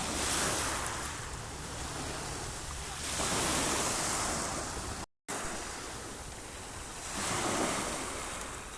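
Sea waves breaking and washing ashore, swelling in three surges about four seconds apart, over a low rumble of wind on the microphone. The sound cuts out for a moment about five seconds in.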